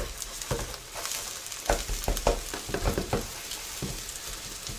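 Egg omelette sizzling in oil in a non-stick frying pan, with a string of short taps and scrapes as a spatula cuts down through the egg against the pan base.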